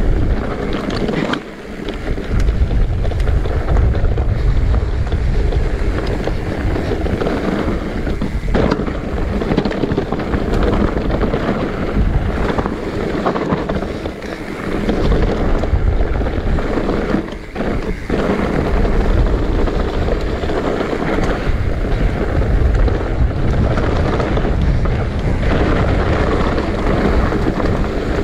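Wind buffeting the microphone over the rumble and rattle of an electric mountain bike riding fast down a dirt trail, with brief knocks as it hits bumps.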